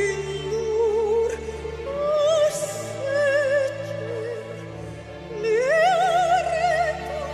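Background music: a classical-style vocal melody with strong vibrato over sustained orchestral tones, slow and held.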